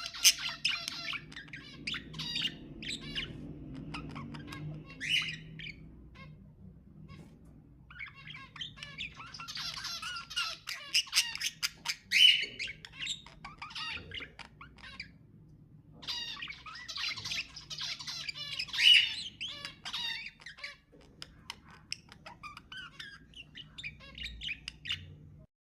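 Budgerigars warbling and chattering in several long bursts, with sharp squawks mixed in and short pauses between the bursts.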